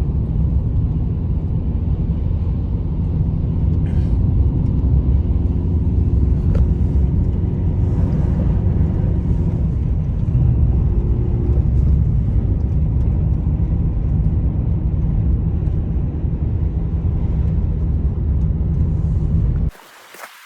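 Strong blizzard wind buffeting the microphone: a loud, steady low rumble that cuts off suddenly near the end.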